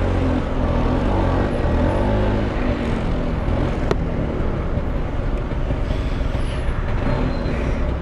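LML NV scooter's two-stroke engine running under load, pulling up a steep street in slow traffic. A single sharp click about four seconds in.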